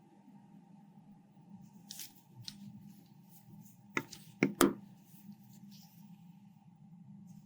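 Small hard objects handled by hand: scattered light clicks and ticks, then three sharp, loud clicks about four to five seconds in, over a steady low hum.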